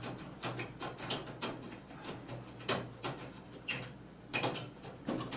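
Old 4-foot fluorescent tube being twisted and worked in its sockets to remove it: scattered light clicks and scrapes of the tube ends and pins against the plastic holders.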